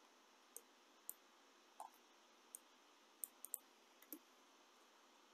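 Near silence broken by about eight faint, irregular computer mouse clicks.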